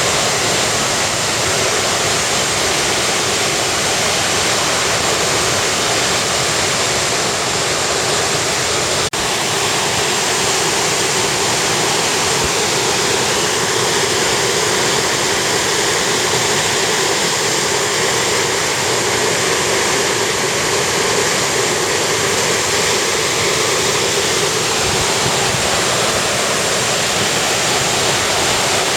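A river swollen after heavy typhoon rain, its floodwater rushing steadily and loudly.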